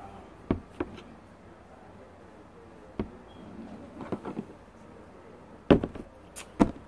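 A few scattered light knocks and clicks of containers and bottles being handled while slime ingredients are poured, the loudest two close together near the end.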